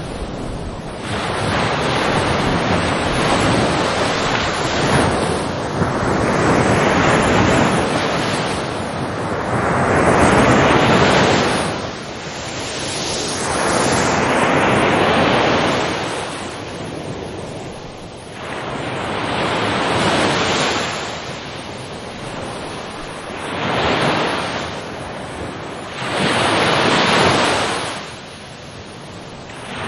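Ocean waves breaking and washing in, the surf swelling and falling away every three to four seconds.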